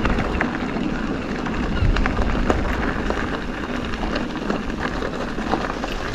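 Strong wind rumbling and buffeting on the microphone, with scattered sharp clicks and rattles.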